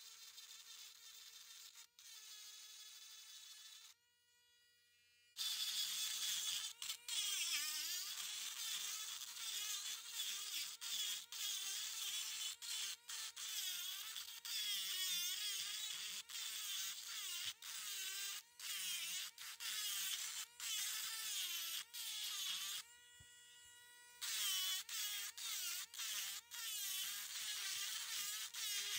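Dremel rotary tool's high-pitched motor whine as its bit grinds into fossil shell rock. It is quieter for the first few seconds, then gets louder and rougher, its pitch wavering and dipping as the bit bites into the stone. A little before the end it runs steadier and quieter for about a second.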